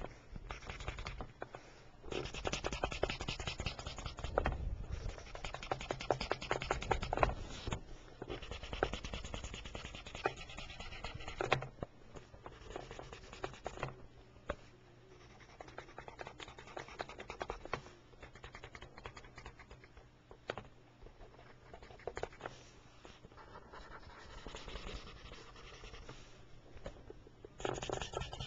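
Rapid back-and-forth scratching of a coloring tool on paper as a picture is colored in. It is louder for the first dozen seconds, fainter through the middle, and picks up again near the end.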